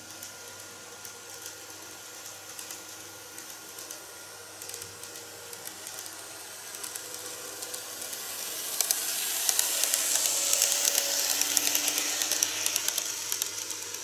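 KATO N-gauge model train (KiHa 201 series railcar set) running on model track, a whirring hiss with rapid small clicks from the wheels over the rail joints. It grows louder as the train comes closer, is loudest as it passes about nine to thirteen seconds in, and fades near the end.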